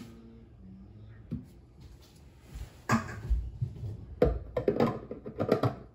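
Irregular knocks, clunks and clicks of hands handling fittings at a kitchen sink. They start about three seconds in, after a quiet opening.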